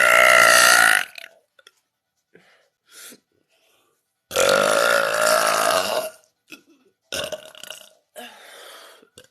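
A person burping loudly and at length: a long burp ends about a second in, and a second long, drawn-out burp comes about four seconds in and lasts nearly two seconds. Short, fainter sounds follow near the end.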